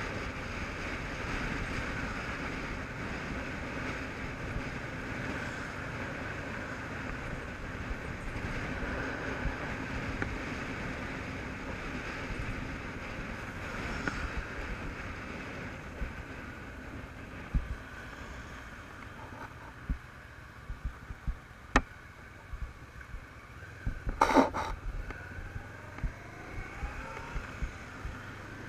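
Motorcycle engine running with wind rushing over the camera's microphone while riding. The sound drops lower about halfway through, and several sharp knocks follow, the loudest about three-quarters of the way in.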